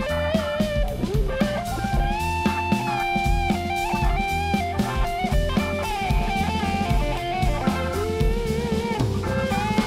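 Jazz-fusion band playing: a held, wavering lead melody that slides between notes over a steady drum-kit beat and a strong low bass line.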